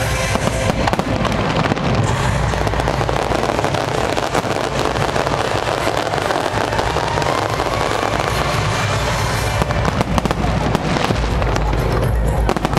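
Fireworks bursting and crackling in rapid, continuous succession, with music playing underneath.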